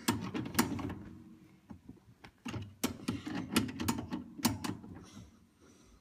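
Channel-lock pliers clicking and knocking against the dishwasher's water-line fitting as a child grips and turns it: a run of sharp, irregularly spaced clicks with scraping between them.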